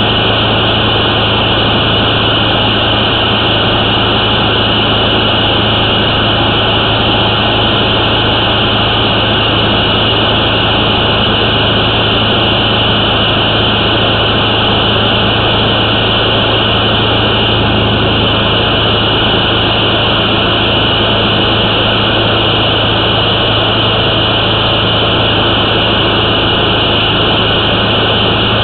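Steady machine drone with a constant low hum, unchanging throughout.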